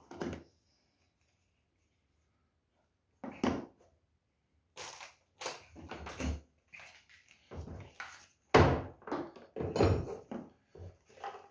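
Irregular knocks and thumps of the hammer drill and its boxed accessories being handled, starting about three seconds in after a near-silent stretch, loudest about eight and a half seconds in.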